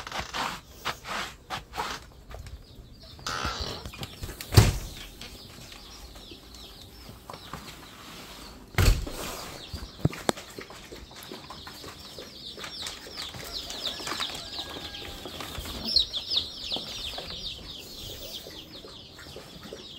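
Scattered knocks and movement noise with two sharp thumps, a few seconds in and about halfway. Then a brood of young poultry chicks peeping in a brooder tub: many short, high, falling chirps close together, growing busier toward the end.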